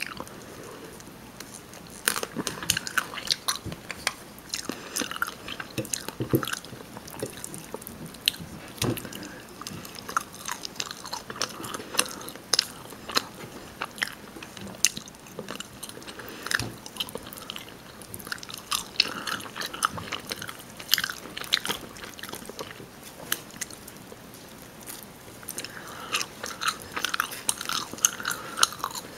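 Close-miked biting and chewing of rotisserie chicken: wet mouth clicks and smacks, coming in denser bouts of a few seconds with lighter clicking between.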